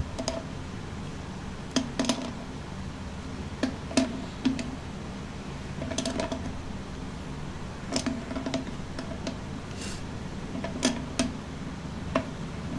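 Pliers turning a brass tap spindle to tighten it into the tap body: irregular metallic clicks and short scrapes, one every second or so, as the jaws bite and are reset, over a low steady hum.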